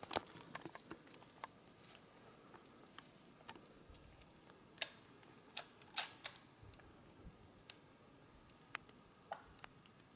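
Quiet forest with faint, irregular sharp clicks and ticks. They come thickly at first and more sparsely later, the loudest about five and six seconds in.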